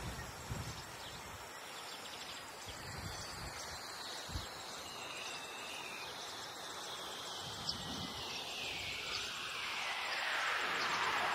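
Steady outdoor background noise, swelling a little near the end, with a couple of faint taps from hands handling the food on the plate.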